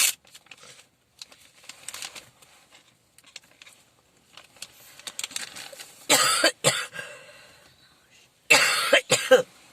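A person coughing in harsh fits: a short run of coughs about six seconds in and a longer, louder bout near the end. It is a lingering bronchitis cough with phlegm that will not clear.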